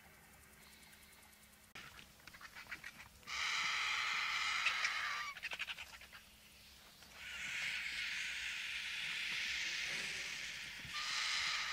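White-backed vultures squabbling at a carcass. Rapid rattling chatter starts about two seconds in, followed by a loud squealing call and more chatter, then a long hiss, and another squeal near the end.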